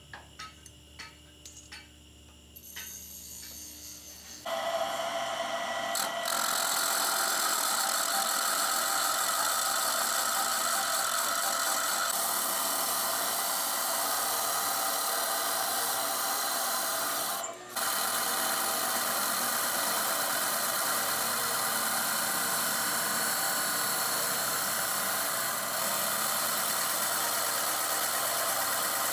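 Abrasive chop saw cutting through a steel pipe. A few light metal clicks come as the pipe is set in the vice. About four seconds in, the loud, steady grinding of the cut begins; it breaks off for a moment about two-thirds of the way through, then goes on.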